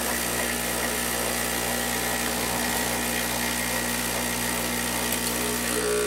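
Espresso machine's electric water pump running with a steady buzzing hum as it pushes water toward the hot-water nozzle. A higher steady tone joins near the end.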